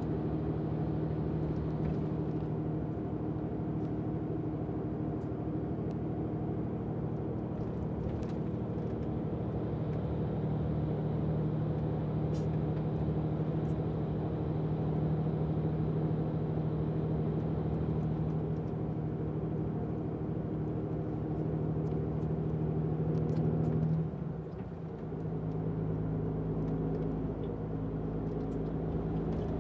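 Tour coach's engine and road noise heard inside the passenger cabin: a steady drone with a low hum. About 24 seconds in it dips briefly, then carries on with the hum at a slightly different pitch.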